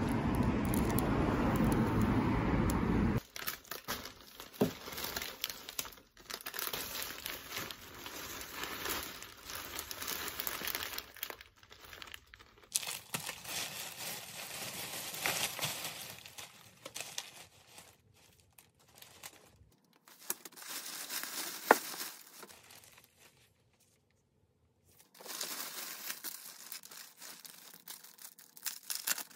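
Plastic shopping bag and wrappings crinkling and rustling as items are unpacked, in irregular bursts with short pauses and one sharp click about two-thirds through. It opens with about three seconds of steady outdoor street noise that cuts off abruptly.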